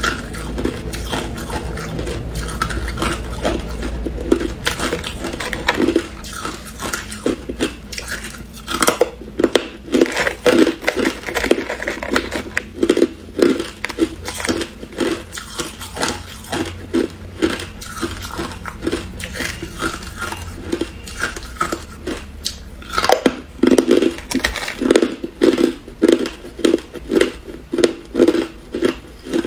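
Chunks of crushed ice being bitten and chewed, a run of crisp, brittle crunches at roughly two a second, with the ice cracking and grinding between the teeth.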